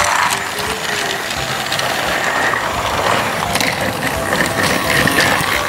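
Battery-powered Thomas & Friends toy engine running along a cardboard track: its small electric motor and plastic gears whirring steadily.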